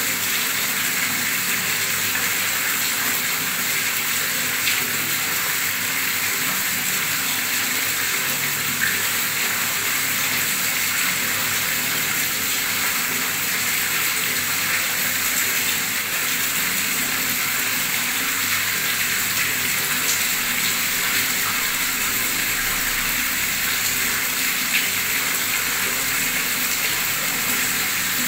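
Water from a tap gushing hard into standing water, a steady splashing rush that churns the surface into bubbles.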